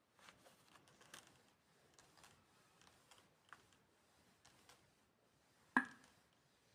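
Quiet handling sounds: faint, scattered light taps and clicks, with one sharper click or knock near the end.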